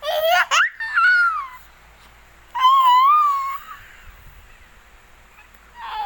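A toddler squealing and giggling in high-pitched, gliding squeals of laughter: twice in the first second and a half, again around three seconds in, and once more at the very end.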